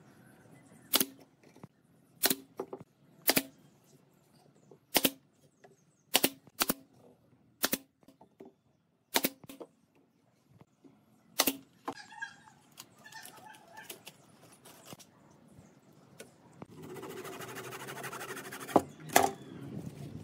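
Pneumatic nail gun firing into a pine table frame: about a dozen sharp single shots, one to two seconds apart. Near the end, a few seconds of steady noise with two more shots.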